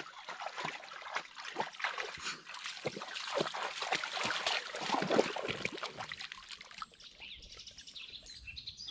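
A dog wading through a shallow muddy puddle, the water splashing and sloshing with its steps. The splashing dies down about seven seconds in.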